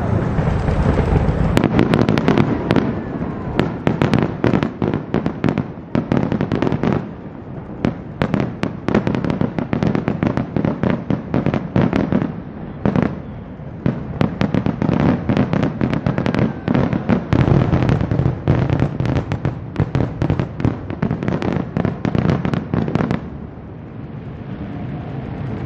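Fireworks display: aerial shells bursting in rapid succession, dozens of sharp reports one after another, beginning a second or two in and thinning out near the end.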